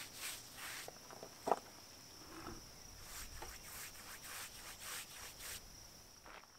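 Paintbrush scrubbing black finish onto rough-sawn wooden boards in short repeated strokes, about two or three a second, stopping near the end, with one sharp tap about a second and a half in. A steady high insect trill runs behind it.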